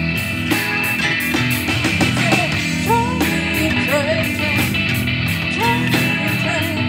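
Live rock band playing: drum kit with a steady cymbal beat, electric bass, electric guitar and keyboards. A lead line slides and bends in pitch over the band from about two seconds in.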